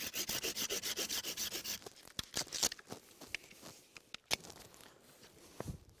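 A blade cutting into a piece of branch with quick back-and-forth sawing strokes, about ten a second for nearly two seconds, followed by a few scattered clicks and knocks.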